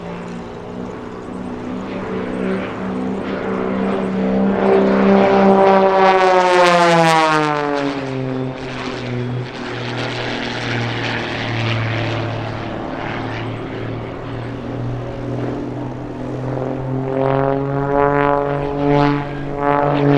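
Edge 540 aerobatic plane's six-cylinder Lycoming piston engine and propeller running in flight. The pitch falls steeply as the plane passes close about six seconds in, then holds lower. Near the end the engine note climbs and wavers as the plane powers through a manoeuvre.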